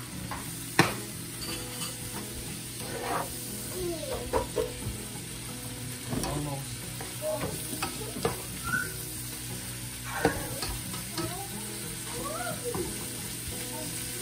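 Sliced ribeye, mushrooms and onions sizzling in a nonstick pan while a spatula stirs and scrapes them against the pan, with a sharp clack about a second in.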